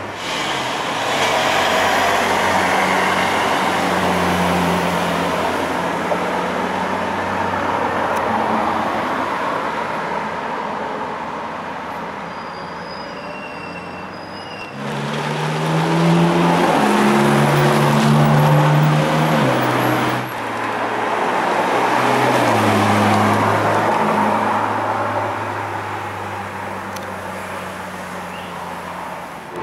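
Ferrari 458's 4.5-litre V8 running as it accelerates past, its engine note stepping up through quick upshifts. Several passes are spliced together, each swelling and fading.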